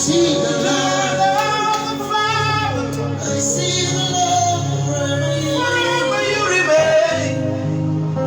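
Slow worship music: a singer holds long, wordless, drawn-out vocal lines over sustained keyboard pad chords.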